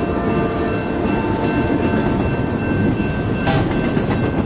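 Freight train cars rolling past close by, their steel wheels rumbling and clattering on the rails, with faint steady high tones over the noise.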